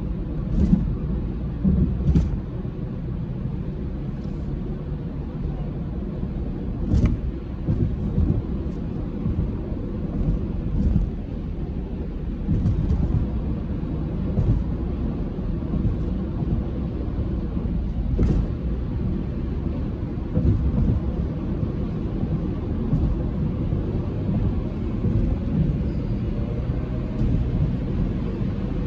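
Road noise inside a moving car's cabin: a steady low rumble of tyres and engine at highway speed, with a few short sharp knocks, the clearest about 7 and 18 seconds in.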